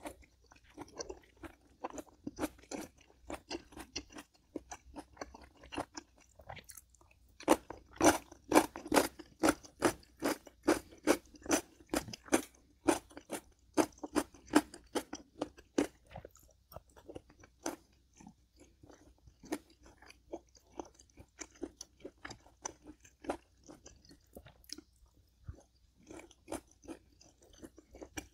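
A person chewing food with crunchy bites, a quick run of crunches that is busiest and loudest in the middle stretch.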